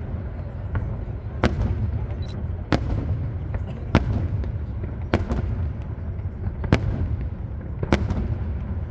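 Aerial fireworks display: shells bursting in a string of sharp bangs about a second apart, over a constant low rumble of continuous explosions.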